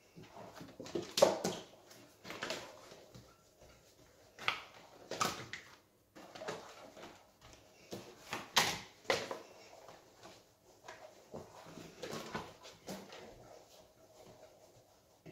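Bread dough being folded and pressed by hand on a plastic pastry mat: irregular soft slaps and knocks with rustling of the mat.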